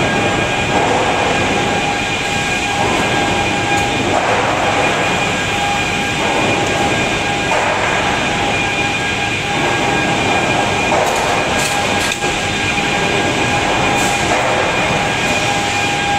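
Steady din of a sawmill's timber stacking and strapping line, with a constant high whine running through it. A few sharp clicks come about two-thirds of the way in.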